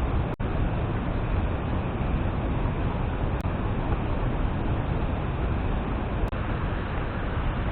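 Steady rushing water noise, broken by two very brief dropouts.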